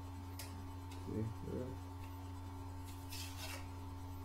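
Plastic blister packaging being handled and pried at by hand: a couple of faint clicks, a short low-pitched sound about a second in, and a brief crinkling scrape about three seconds in, over a steady electrical hum.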